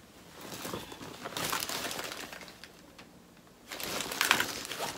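Packaging crinkling and rustling as items are handled, in two spells with a quieter gap of about a second near the middle.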